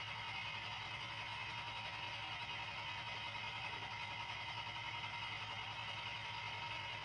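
Small engine on the fishing boat running steadily at constant speed, with a fast, even pulsing beat.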